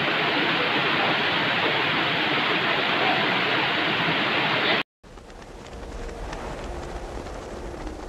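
Rushing river water pouring over rocks, loud and steady, cut off abruptly about five seconds in. After a moment of silence, a quieter rush of water follows, with a low wind rumble on the microphone.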